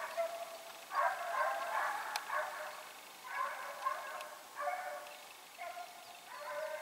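Hare-hunting hounds baying on a hare's scent: repeated drawn-out cries from several dogs, overlapping at times.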